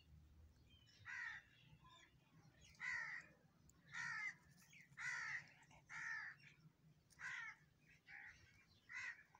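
A crow cawing over and over, about once a second, in short harsh calls.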